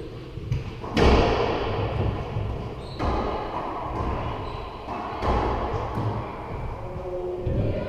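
Racquetball rally: the ball cracks off racquets and the court walls about five times, each hit ringing in the enclosed court, the loudest about a second in.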